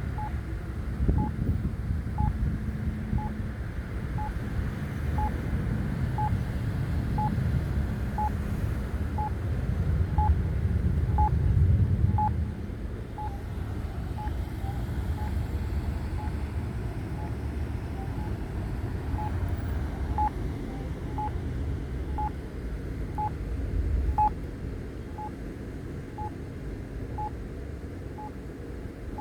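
Accessible pedestrian signal push-button locator tone: short, high beeps repeating about once a second, over the low rumble of passing traffic that is loudest for the first twelve seconds or so.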